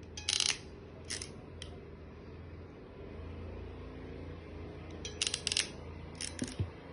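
Sharp metallic clicks and snips from a crimp tool working a Cat6 Ethernet cable and its RJ45 connector, coming in small clusters near the start and again after about five seconds, over a low steady hum.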